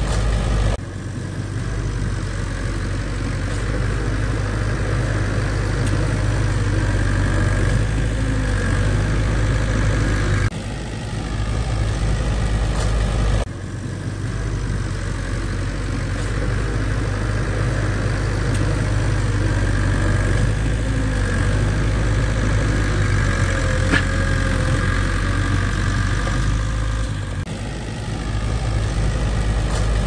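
Bulldozer diesel engine running steadily with a low rumble. The sound jumps abruptly in level and tone several times: about a second in, around ten and thirteen seconds, and near the end.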